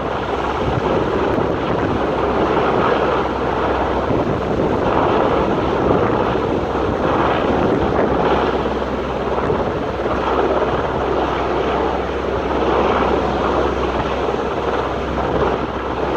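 Strong wind buffeting the microphone over a steady low aircraft engine drone.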